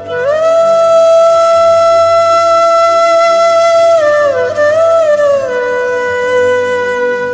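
Background music: a solo flute-like wind instrument holds one long note, wavers briefly about four seconds in, then slides down to a lower note and holds it.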